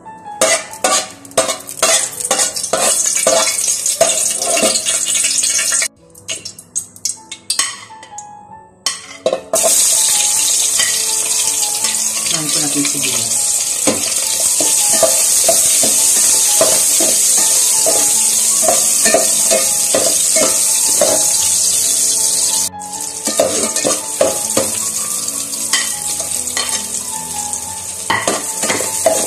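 Sliced onions frying in hot oil in a metal pot, sizzling, with a ladle scraping and knocking against the pot as they are stirred. The sizzle jumps much louder about ten seconds in and then holds steady.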